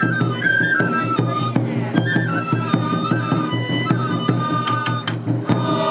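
Shishimai festival music: a Japanese bamboo flute plays a stepping melody over steady drum strokes, the flute pausing briefly near the end.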